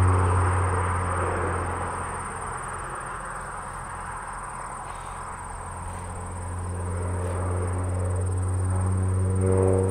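Crop-dusting airplane's engine and propeller droning, fading over the first few seconds as it banks away and building again toward the end as it comes back around.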